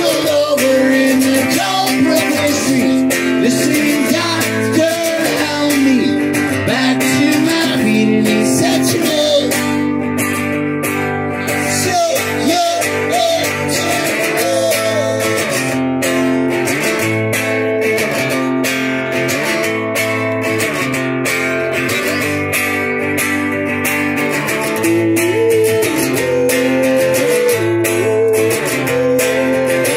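Acoustic guitar strummed in a steady rhythm, played live, with a man singing over it for much of the time.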